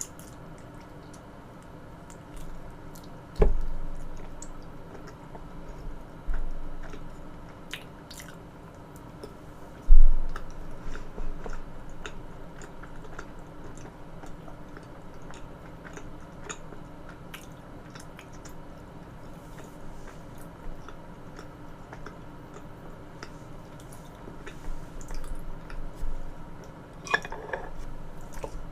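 Close-miked eating sounds: soft wet chewing and mouth clicks, with a few dull thumps, the loudest about ten seconds in.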